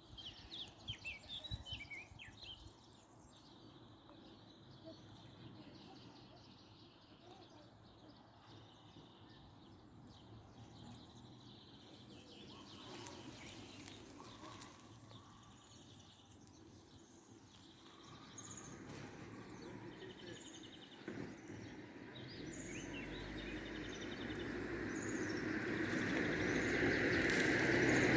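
Birds chirping over quiet outdoor ambience. A vehicle approaches in the second half and grows steadily louder toward the end.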